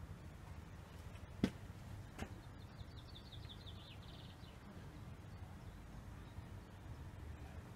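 A small bird sings one short trill of quick high notes that fall slightly in pitch, over a low steady rumble. A sharp click about one and a half seconds in is the loudest sound, with a fainter click shortly after.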